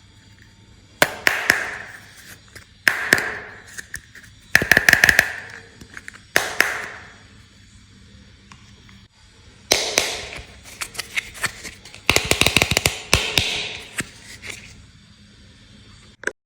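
Small plastic toy kitchen pieces clicking and rattling as they are handled and set down, in about six short bursts of sharp clicks with quiet pauses between them.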